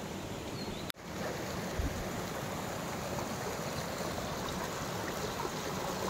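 Steady rush of water from a fast mountain stream falling over rocks. It drops out for an instant about a second in.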